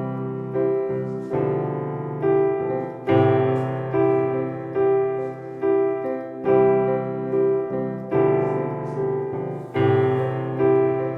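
Solo piano introduction: chords struck at a steady, even pace and left ringing, with the harmony changing about every three seconds in a repeating pattern.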